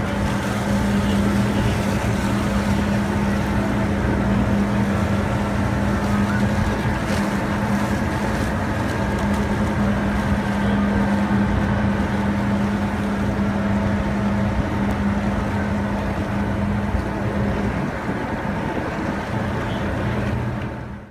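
Motorboat engine heard from on board, running at a steady cruise: a constant drone under rushing water and wind noise. It cuts off suddenly at the end.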